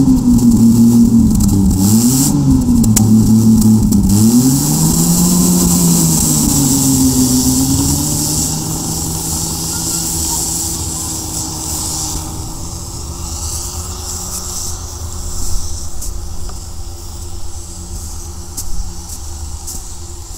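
Studebaker M29 Weasel tracked snow vehicle driving through snow, its six-cylinder flathead engine revving up and down several times, then running at a steady pitch and fading as the vehicle moves away.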